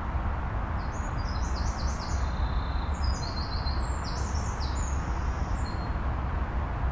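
A small songbird singing a quick run of short, high, falling chirps for about five seconds, over a steady low rumble.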